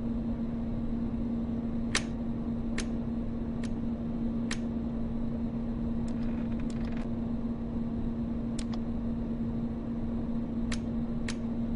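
Steady low electronic hum of a spaceship bridge, with about nine sharp clicks scattered through it as switches and knobs on the control consoles are worked.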